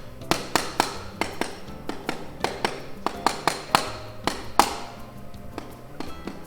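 Sharp metallic taps and clinks of tools working on a scooter wheel, irregular and a couple to the second, some ringing briefly, over soft background music.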